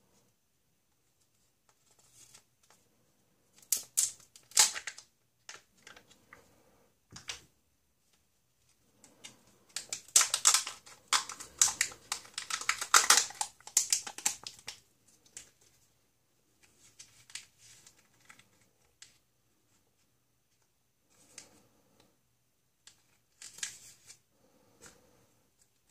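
Crinkling and tearing as a Kinder Joy egg's foil seal is peeled off its plastic capsule by hand, with clicks of the plastic capsule being handled and opened. The sound comes in short irregular bursts, with the longest and loudest stretch around the middle.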